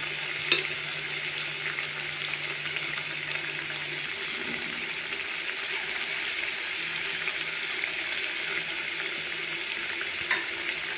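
Cabbage-and-batter pakoras deep-frying in hot oil, a steady sizzle, with a short knock about half a second in and another near the end.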